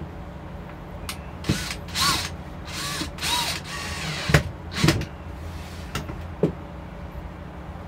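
Cordless drill-driver driving screws into plywood: four short runs of the motor in the first half, each rising in pitch as it spins up, then a few sharp knocks and clicks.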